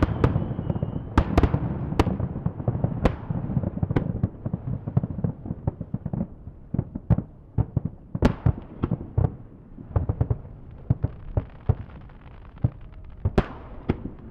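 Fireworks display: shells bursting in an irregular string of sharp bangs. A dense rumble fills the first two seconds, then come thinner, quicker pops and crackles, with a few louder booms standing out.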